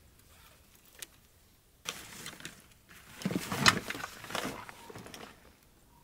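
Rummaging in a plastic storage tote on a car roof rack: a backpack shoved aside, the plastic lid and the contents knocking and rustling irregularly. It starts about two seconds in and is loudest in the middle.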